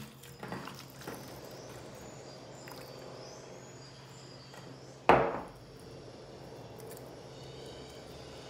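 Hands working seasoned raw pork loin in a glass bowl, with soft wet handling sounds that are strongest in the first second. A single sharp knock comes about five seconds in.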